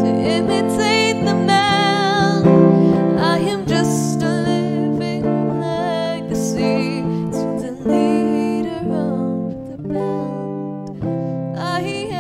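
A teenage girl singing a song, holding notes with vibrato, while she accompanies herself on an electric guitar played clean.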